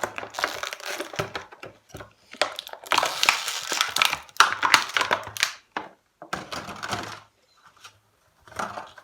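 Small plastic toy figures and their packaging being handled: crinkling plastic and quick clicks and taps, in several bursts with short pauses.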